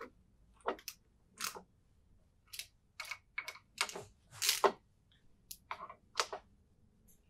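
Irregular metallic clicks and clinks from a hand wrench turning the set screws into a mud-motor lower unit's belt sprocket, about a dozen short sounds, a couple of them sliding down in pitch like a brief scrape.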